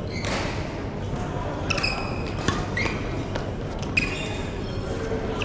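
Badminton rally: a few sharp racket hits on the shuttlecock about a second apart, with players' footwork on the court, over the steady murmur of a busy sports hall.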